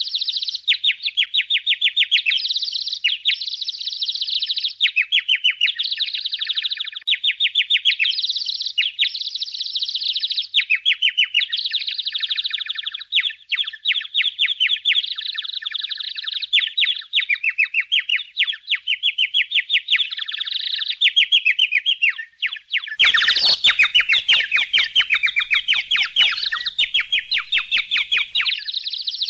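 Budgerigars chirping and chattering in a dense, unbroken flurry of rapid high chirps. For about five seconds near the end, a run of clicks joins in.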